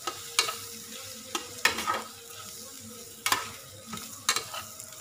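Raw rice frying with pandan leaf in a small stainless-steel saucepan, stirred with a metal spatula: the grains sizzle and rustle. The spatula knocks and scrapes against the pan several times.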